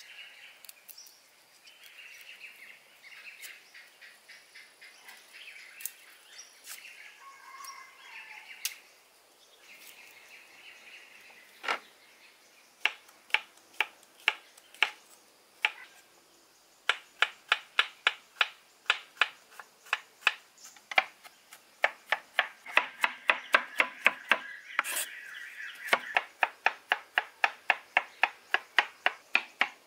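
Kitchen knife chopping garlic on a wooden cutting board: a quick, even run of sharp knocks, about three a second, with a short pause a little past the middle. Birds chirp faintly during the first third, before the chopping starts.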